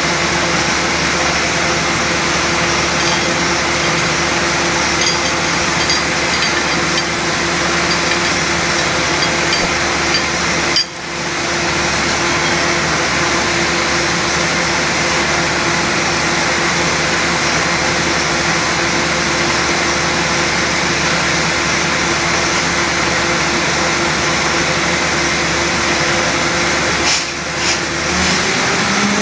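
Borewell drilling rig and its air compressor running: a loud, steady mechanical drone with a constant hum, broken by a brief drop about eleven seconds in and a couple of short dips near the end.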